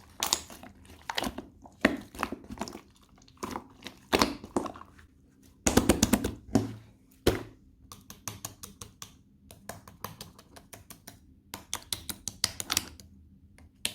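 Slime being squeezed and poked by hand, giving sticky clicks and pops. There is a denser squishing burst about six seconds in, and quicker runs of clicks in the second half.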